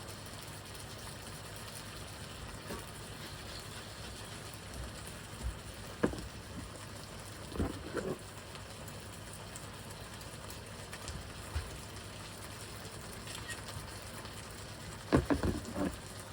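Stir-fry with sauce sizzling steadily in a hot pan, broken by a few short knocks and clatters, twice in the middle and a cluster near the end.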